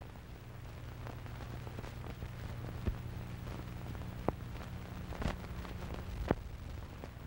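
Old film soundtrack noise under a title card: a steady low hum with scattered crackle and a few sharp pops, the loudest about three, four, five and six seconds in.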